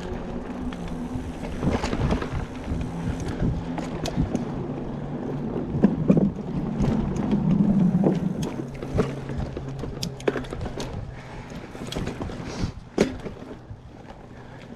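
Mountain bike being ridden along a dirt trail. There is a steady low hum that swells in the middle, constant small rattles and clicks from the bike over the rough ground, and a couple of sharper knocks near the end.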